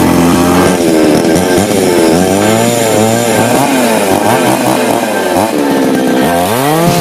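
Chainsaw engine running loud and revving, its pitch going up and down, then climbing to a high steady rev near the end.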